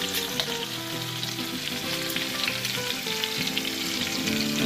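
Pork roast sizzling and crackling in hot oil in a cast-iron camp oven, a steady fry, with a soft tune playing underneath.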